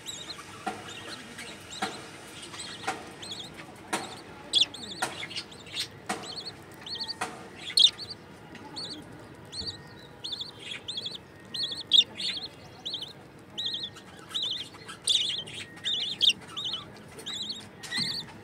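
Budgerigar chicks giving short, high, repeated begging chirps while an adult budgie feeds them in the nest box. The chirps come thickest in the second half, about two a second. Sharp clicks and taps are scattered through the first half.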